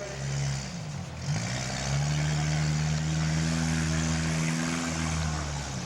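Mini demolition-derby car's engine running. About a second in its pitch sags low and climbs back, then it holds a steady rev.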